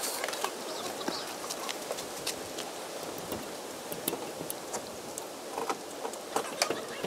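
Small metal parts clicking and tapping irregularly as the Toyota Hilux's front wheel hub is reassembled by hand after a bearing replacement, over a steady background hiss.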